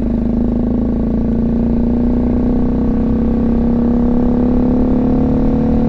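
BMW G310GS's single-cylinder engine running steadily under way, its pitch creeping up slightly, with low wind rumble on the helmet microphone.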